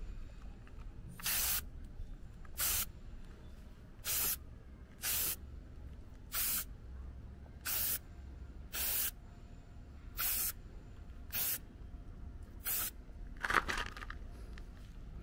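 Aerosol touch-up paint can spraying in short bursts, about eleven of them roughly a second apart. Each burst is a brief even hiss, with the paint laid on in repeated light passes.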